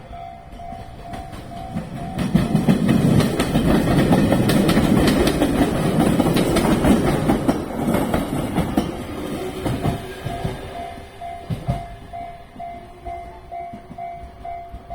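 Local train passing over a Japanese level crossing, its wheels clattering over the rail joints. It grows loud about two seconds in and fades after about nine seconds. The crossing's warning bell rings about twice a second, heard before the train arrives and again as it recedes.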